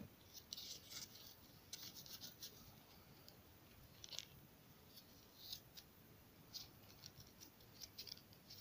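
Teething kitten gnawing and clawing at a stick of cardboard bound with twine: faint, irregular scratchy crunches and rasps in quick clusters.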